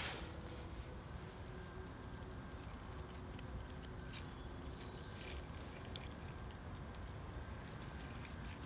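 Small fire just lit in dry wood shavings on top of a split birch Swedish fire log, crackling faintly with scattered small clicks as kindling sticks are laid on.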